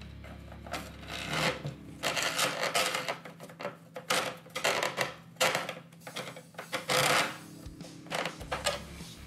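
Thin metal posts being twisted and worked by hand into the mounting holes around a motherboard's CPU socket: repeated scraping and rasping of metal on metal, in bursts of about a second, starting about a second in.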